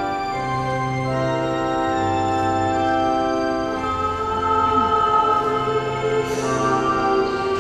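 Choir singing with organ accompaniment, in long held notes over a steady bass line.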